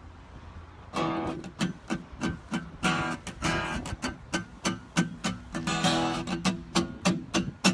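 Acoustic guitar strummed in a steady rhythm, about three strums a second, starting about a second in after a faint low rumble.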